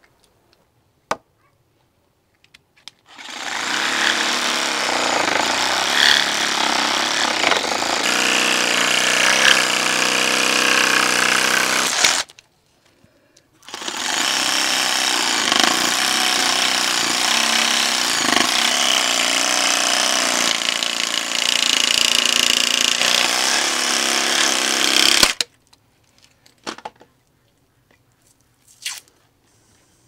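Green Bosch electric reciprocating saw cutting through a piece of ostrich leg. It runs in two long spells of about nine and eleven seconds, with a short stop between them.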